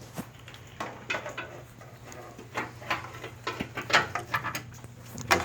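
Irregular small clicks and clinks of hand work on a car's fog light mounting, as metal fasteners and bracket parts are handled and fitted, with a few sharper knocks.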